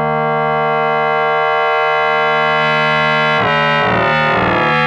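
SoundHack Spectraphon synthesizer module in Chaos mode, playing a steady drone of paired sine tones. About three and a half seconds in, audio-rate modulation of one sine by the other is turned up, and the tone abruptly becomes a brighter, denser, rapidly warbling texture.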